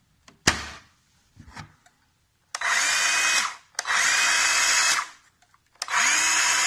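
Craftsman V20 cordless 6.5-inch circular saw: a sharp click about half a second in as the battery pack snaps in, then the motor and blade spun up free with no load in three short runs of about a second each, each rising in pitch as it comes up to speed and winding down when the trigger is let go. It sounds definitely quiet.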